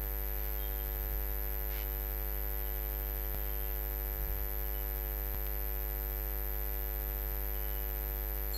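Steady electrical mains hum, a low buzz with many overtones, running at an even level, with a few faint clicks about three and five seconds in.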